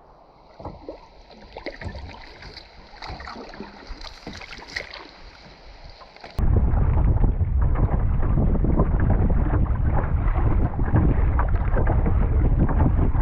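Kayak paddle strokes dipping and splashing in the lake water. About six seconds in it gives way abruptly to loud wind buffeting the microphone over the sound of the water.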